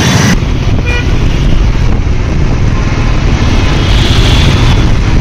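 Ride noise from a Royal Enfield Classic 350 moving through city traffic: steady low engine and wind rumble, with a short vehicle horn toot about a second in.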